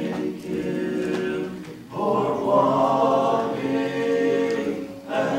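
Three voices, a woman and two men, singing a gospel song together. About two seconds in they swell into a long held chord that breaks off near the end.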